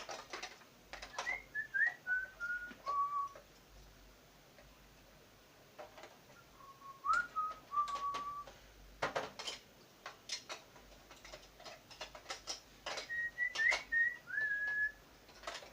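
A person whistling a tune in three short phrases of clear notes that step downward in pitch. Sharp clicks and knocks of small parts being handled come between the phrases.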